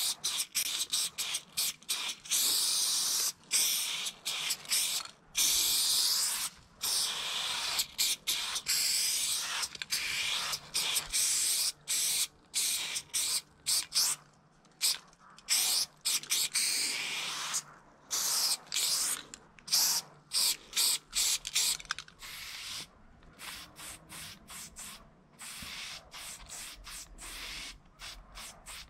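Aerosol spray paint can hissing in many short on-off bursts as a graffiti piece is painted. The bursts grow shorter and quieter over the last third.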